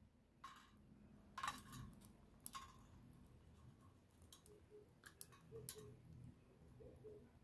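Near silence with a few faint, scattered clicks as a long-nosed butane lighter is worked at a folding metal pocket stove to light a solid fuel tab.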